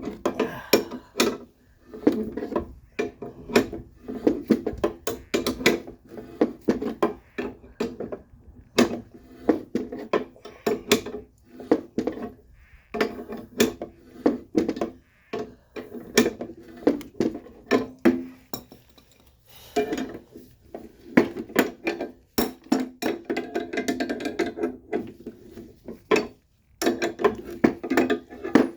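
Hand tools clicking and clinking on metal, irregular knocks and short ringing taps, as a coil spring is worked down with a spring compressor on a car's front strut.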